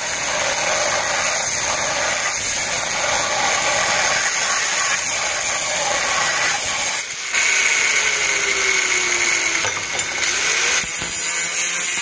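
Angle grinder with a thin cutting disc cutting through a steel beam: a loud, steady grinding hiss of disc on metal. It breaks off briefly about seven seconds in, then resumes, the motor's note sagging and then recovering under load near the end.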